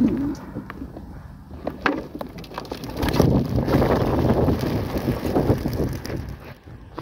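A flock of young racing pigeons bursting out of a wooden transport crate in a loud flurry of wing flaps about three seconds in, fading as they fly off. Before it, a few knocks from the wooden crate as its door is worked open.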